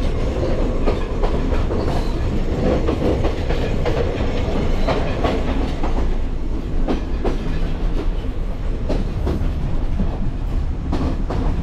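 Sri Lankan passenger train carriage running along the track, heard from inside the coach with its windows open: a steady, loud rumble and rattle of the car body, with irregular sharp clicks from the wheels on the rails.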